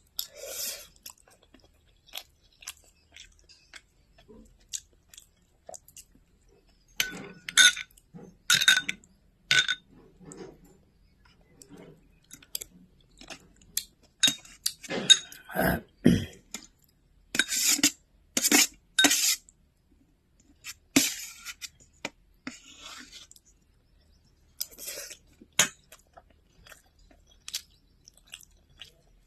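Close-miked chewing with crisp crunches, coming in irregular bursts separated by short pauses.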